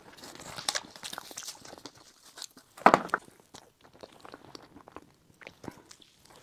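Close-miked eating of a matcha crepe towel roll filled with cream, red bean and Oreo crumbs: handling rustles, then a loud bite about three seconds in, followed by soft biting and chewing.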